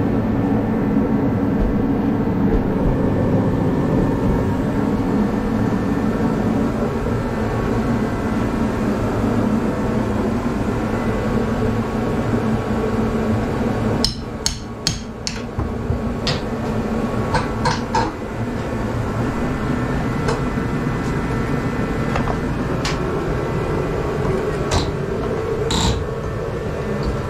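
A steady hum throughout, and from about halfway in a scatter of sharp knocks, some in quick runs and some single, like hammer taps on the framing.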